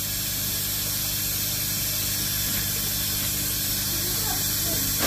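Steady rushing hiss of water running or spraying into the pond, with a low steady hum beneath it. A short falling sweep comes right at the end.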